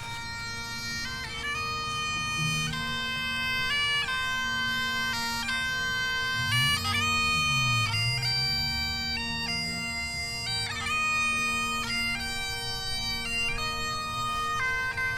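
Bagpipes playing a melody of held notes over a steady drone.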